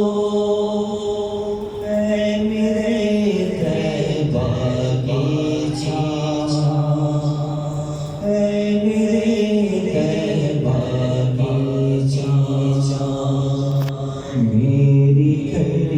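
Durood (salawat on the Prophet) chanted in long, drawn-out melodic phrases, the held notes moving to a new pitch every few seconds, amplified through a sound system with echo.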